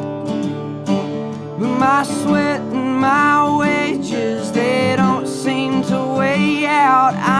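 Country music on acoustic guitar, with a lead melody line that bends and slides in pitch over the accompaniment.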